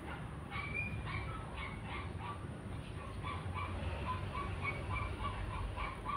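Domestic fowl calling in a run of short, repeated calls that come faster, about two to three a second, in the second half.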